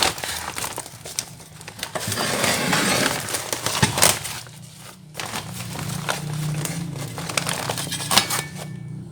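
Plastic wrapping crinkling and rustling as steel parts are handled, with scattered sharp knocks.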